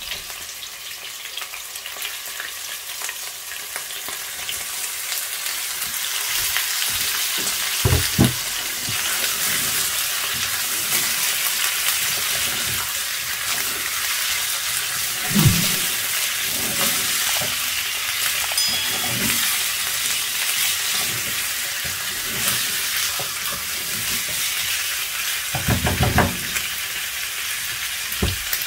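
Raw chicken pieces sizzling in hot oil in a nonstick pan with garlic and spring onion, the frying hiss building over the first several seconds as the pan recovers its heat. The pieces are stirred with a spatula, with a few thumps against the pan.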